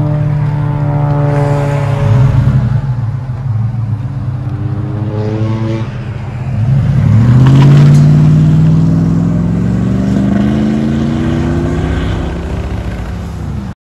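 2008 Ford F-150's 5.4L Triton V8 running through a Flowmaster FX muffler and dual tailpipes. About seven seconds in, the truck pulls away and accelerates: the exhaust note rises in pitch and grows loud, then fades as it drives off. The sound cuts off suddenly just before the end.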